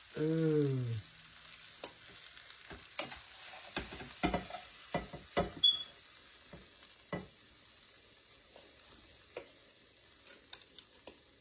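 Faint steady sizzling of meat in a hot frying pan, with scattered clicks and knocks of a utensil against the cookware.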